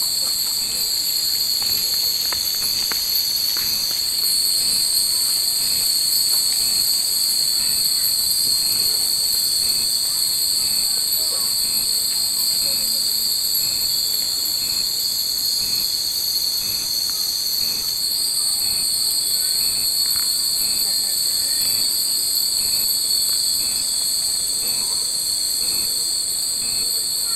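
A steady, high-pitched summer chorus of cicadas, swelling a little about four seconds in and easing about eighteen seconds in. A few faint tinkles of wind chimes sound under it.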